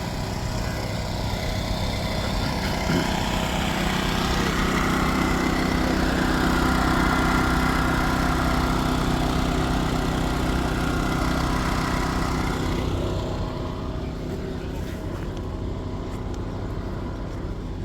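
A motor vehicle's engine running close by, a steady low hum that grows louder toward the middle and fades after about thirteen seconds, as a slow-moving vehicle passing would.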